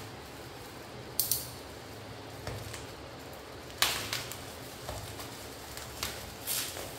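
Utility knife slitting open a plastic bubble-wrap mailer: several short, sharp scrapes and rustles of the blade through the plastic, the loudest about four seconds in.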